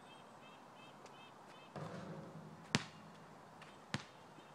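A basketball hits the rim and backboard with a short rattling clang about two seconds in, then bounces twice on the asphalt court, the first bounce the loudest. A faint chirping repeats steadily throughout.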